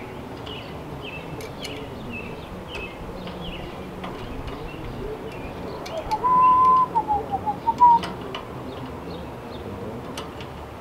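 Small birds chirping, then about six seconds in a loud whistled phrase: one note rising and held, then several short notes stepping down and back up. A few light clicks come through as well.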